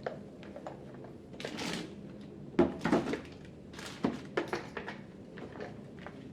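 Handling noises: a series of sharp knocks and clunks, with two brief swishing or rustling sounds, about one and a half and four seconds in.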